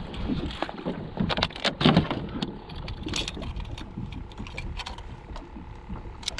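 Knocks and rattles of a landing net and a trout being handled on a plastic kayak deck, busiest and loudest in the first half, about two seconds in, then quieter scattered clicks.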